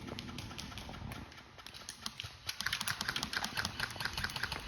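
Airsoft guns firing: rapid, irregular clicks and snaps that grow denser about halfway through.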